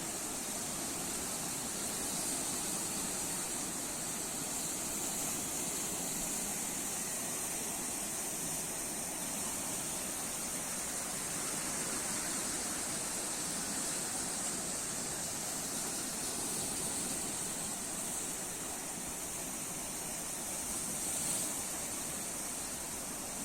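Sea waves washing on the shore, a steady continuous rush with no distinct breaks, under a steady high hiss.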